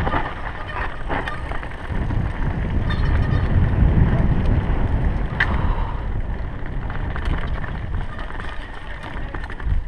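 Mountain bike riding down a dirt singletrack, heard from an action camera on the rider: steady low wind buffeting and tyre rumble, with a few sharp clicks and rattles from the bike over bumps.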